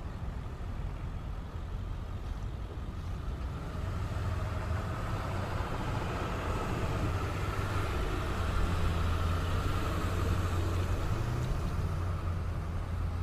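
Ceccato CSA-20 screw air compressor running on load while its delivery pressure climbs: a steady low hum with a rushing noise over it, growing louder from about four seconds in.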